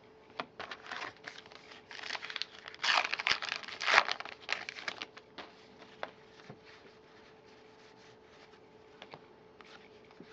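Baseball card pack wrapper being torn open and crinkled in the hands, loudest a few seconds in. Lighter ticks follow as the cards are handled.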